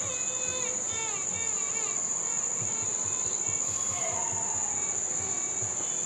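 Crickets trilling in one continuous high-pitched note, with faint melodic music underneath.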